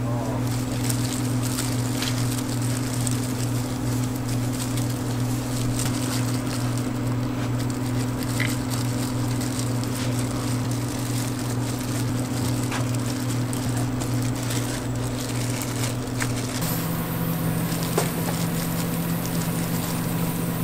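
Food crackling and sizzling in deep-frying oil, an even hiss with scattered small pops, over a steady low machine hum that shifts to a different pitch near the end.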